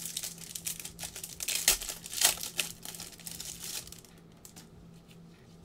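Foil wrapper of a trading-card pack crinkling as it is handled, a dense run of crackles for about four seconds, then dying down to faint rustling.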